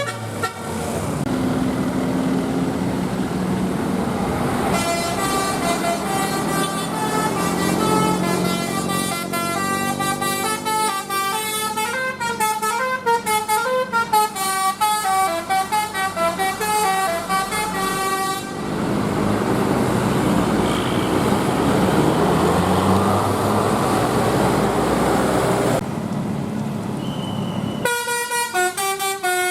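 Bus musical 'telolet basuri' air horn playing a tune of quick stepping notes over the bus's engine and road noise. From about a third of the way in the tune breaks off into plain engine and tyre noise of a passing vehicle, and the horn tune starts again near the end.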